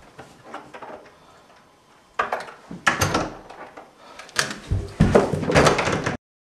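A house door being pushed shut: clicks and knocks from the door and its handle mixed with loud scuffling, the busiest in the last second or so, then the sound cuts off suddenly.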